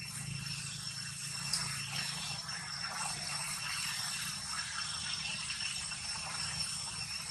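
Steady outdoor ambience: a dense, rattling insect chorus with a few steady high whining tones, over a steady low hum.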